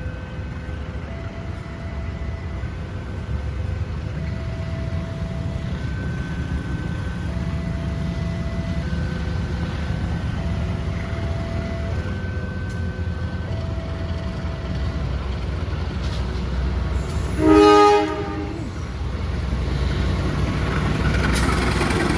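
A train rumbling by while a repeating two-note electronic chime sounds over and over, then a short, loud blast of the train horn near the end.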